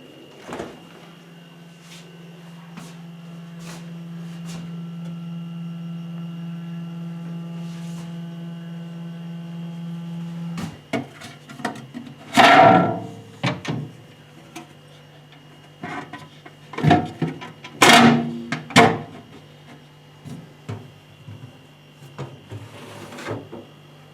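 Candy CKBN 6180 DS fridge-freezer humming steadily for about ten seconds, the hum stopping abruptly, then a run of knocks and thuds typical of its doors and drawers being opened and shut, two of them much louder than the rest.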